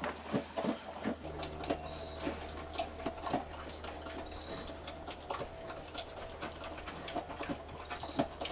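Sow eating dry feed from a plastic bowl: irregular crunching and chewing clicks.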